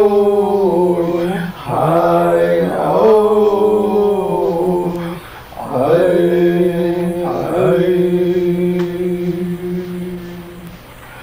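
Two men singing a chant-like song in long held notes: three phrases, each sliding up onto a sustained note, the last one fading out near the end.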